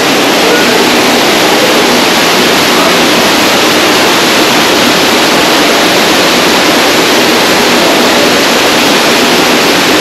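Waterfall rushing, a loud, steady roar of falling water.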